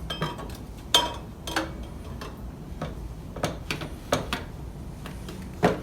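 Irregular metallic clinks and knocks, several over a few seconds, as an exhaust silencer and mid pipe are slid onto a motorcycle's header pipe and worked into place.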